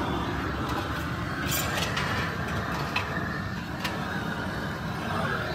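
Steady mechanical workshop rumble with a few sharp metallic clicks and clinks.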